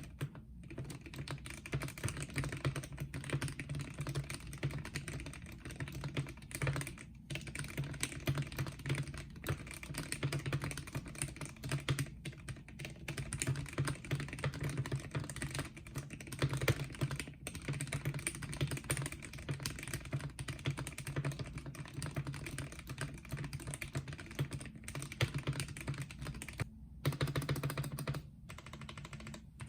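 Continuous fast typing on a Gamakay K66 mechanical keyboard with Gateron yellow linear switches and stabilizers freshly lubed with Krytox 205g0, the keystrokes running together with only a few brief pauses.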